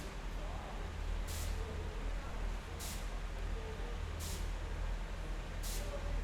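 Train station ambience: a steady low rumble with a short hiss that repeats evenly about every one and a half seconds.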